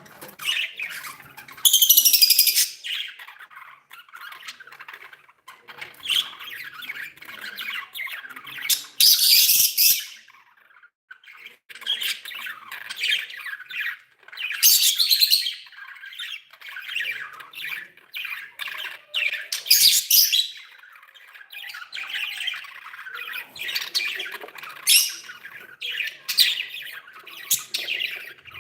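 Budgies chattering and warbling, with loud harsh squawks breaking out every few seconds.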